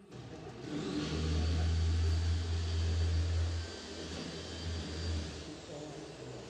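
A motor vehicle passing: a low engine hum that swells about a second in, holds, then fades away.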